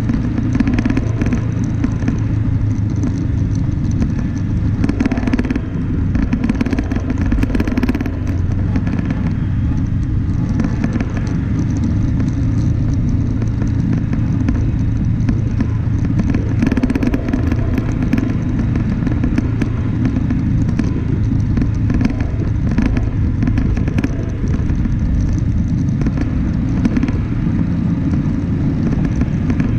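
Vehicle driving along a gravel track: a steady low engine drone with a rumble of the wheels over the ground.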